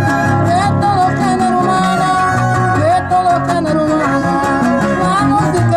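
Live string trio music: a violin playing a gliding melody over a small guitar and a large guitar strumming a steady rhythm.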